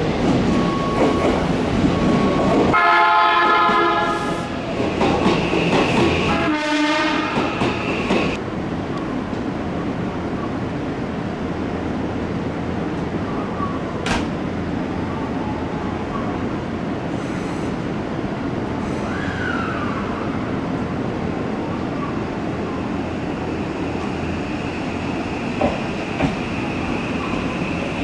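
Odakyu 5000 series electric commuter train sounding its horn twice a few seconds apart. It then runs on with a steady rolling rumble, and a falling motor whine near the middle as it slows.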